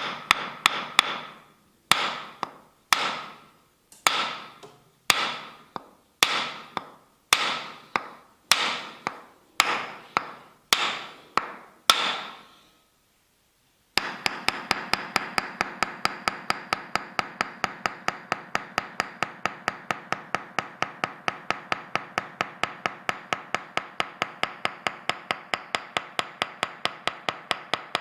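Tok Sen massage: a wooden mallet striking a wooden wedge. First comes a series of single blows about a second apart, each ringing with a clear tone and fading. After a short pause, rapid, even tapping follows at about five strikes a second.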